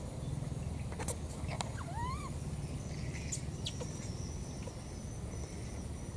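Outdoor background with a steady low rumble and a few faint high ticks. About two seconds in there is one brief rising animal call.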